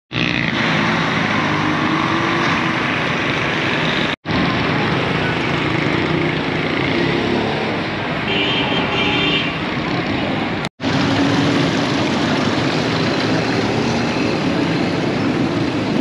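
Busy street traffic with vehicle engines running steadily. The sound cuts out for an instant twice, about four seconds and ten and a half seconds in.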